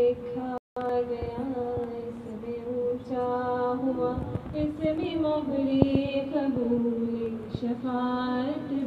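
A woman singing slowly and unaccompanied into a handheld microphone, holding long notes that bend gently in pitch. The sound cuts out completely for a moment just under a second in.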